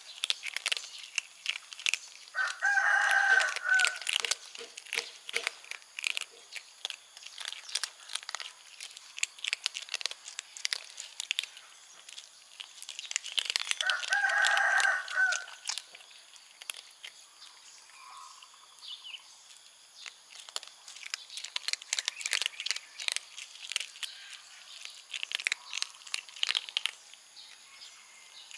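Kittens crunching dry kibble, a dense run of small crisp clicks, while a rooster crows twice, about eleven seconds apart, each crow lasting about two seconds.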